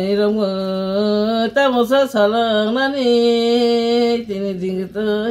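An elderly woman chanting a song unaccompanied, holding long drawn-out notes that slide slightly in pitch, with short breaks for breath.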